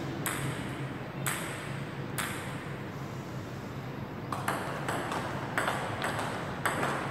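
Table tennis ball clicking off paddles and the table in a rally. The hits come about a second apart at first, then more often from about halfway through.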